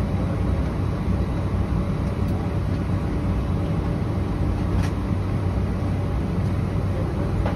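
Steady low rumble and air rush inside the cabin of an Airbus A320 parked at the gate, from its ventilation and onboard systems, with a faint steady hum. A single faint click about five seconds in.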